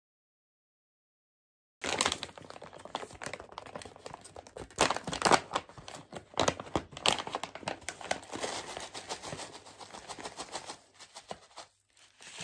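Silence for about two seconds, then a kraft-paper pouch of seasoned laver flakes crinkling and rustling with many small ticks as it is handled and its flakes are tipped out over a bowl of rice.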